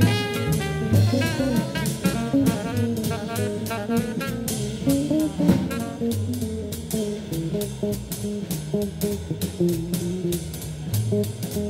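Instrumental jazz-blues music with a steady drum beat.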